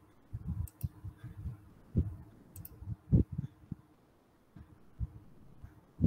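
Scattered soft clicks and low thumps at irregular intervals, with no speech.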